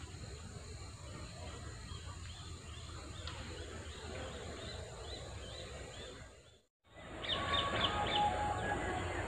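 Outdoor ambience of birds chirping over a low steady rumble. Faint short chirps come in the middle. A brief cut to silence falls about two-thirds of the way through, after which the ambience is louder, with a burst of quick chirps.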